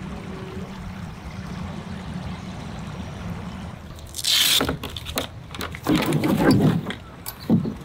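Shallow river water trickling steadily over a stony bed. Then, about halfway, the Tucktec folding kayak's plastic hull sheet is unrolled and opened out: a sharp crackle of flexing plastic, then a longer, louder rustling as the sheet springs open, with a couple of short knocks near the end.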